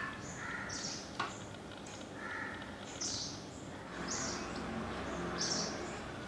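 Birds chirping: a series of short, high chirps about every second or so, with a few lower notes between them. A single light click comes a little over a second in.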